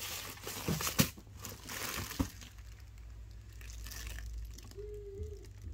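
Packing tissue paper and plastic wrap crinkling as a new tote bag is handled and opened, with two sharp clicks about a second apart in the first few seconds, then quieter rustling.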